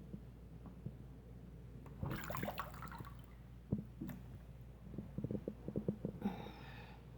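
Water splashing and gurgling in a clogged sink drain that is being worked with a cloth stuffed into it as a makeshift plunger. There is a splash about two seconds in, then a run of quick gurgling pops near the end as air and bubbles come up through the drain.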